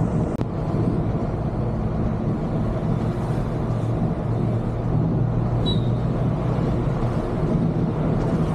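Volvo B11R coach's 11-litre six-cylinder diesel and tyre noise heard from inside the cabin while cruising: a steady low drone. A short high chirp is heard about midway.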